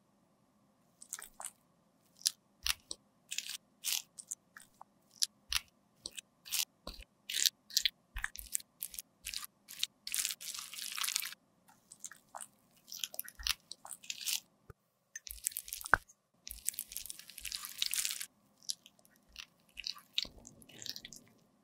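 Close-miked crackling and crunching of a matte lipstick bullet being cut, first with the thread of a dental floss pick and then with a thin metal blade: a quick string of sharp crackles and short scraping rasps, with longer rasps about halfway through and again near three-quarters of the way. A faint steady hum lies underneath.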